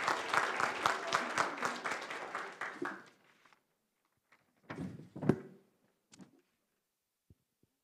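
Audience applauding, dying away about three seconds in; then near silence broken by a couple of short thumps about five seconds in.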